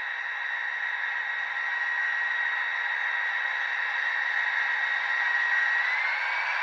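Model locomotive's LokSound V4 sound decoder playing a Class 57/0 diesel engine sound through its small speaker, thin with no bass: a steady engine hiss with a high whine that starts to climb in pitch near the end.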